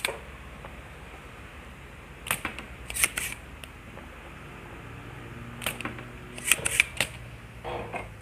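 Spring-loaded desoldering pump being cocked and fired on a circuit board's solder joints, sucking the solder off the potentiometer pins: sharp snapping clicks in several small clusters a second or two apart.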